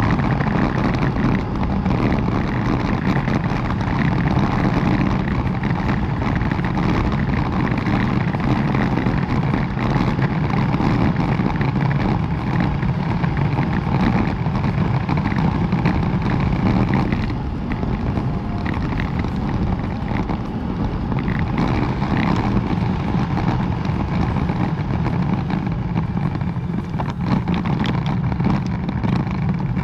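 Strong wind buffeting the microphone of a moving bicycle: a loud, steady rushing noise with no break.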